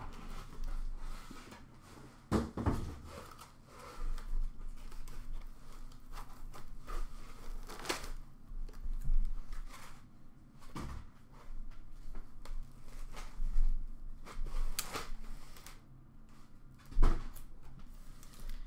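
Cardboard boxes being handled: a shipping carton scraping and rustling as a boxed item is lifted out, with about five knocks and thuds as the box is set down on the counter, the loudest near the end.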